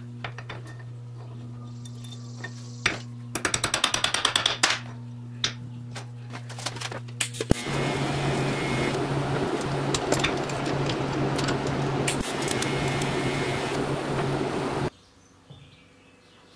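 Welding machine's steady electrical hum, with a quick run of clicks a few seconds in, then a TIG welding arc running with a steady hiss over the hum for about seven seconds before it cuts off suddenly.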